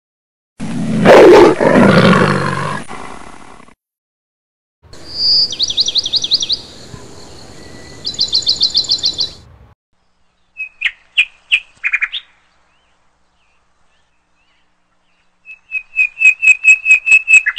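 A big cat's roar from a sound-effect library about a second in, the loudest sound, lasting about three seconds. It is followed by recorded bird calls: a rapid high trill, then a few separate chirps, and near the end a fast run of chirps.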